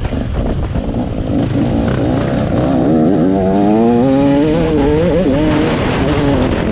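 Two-stroke motocross bike engine revving, its pitch climbing about three seconds in and then rising and falling with the throttle, over a constant low rumble.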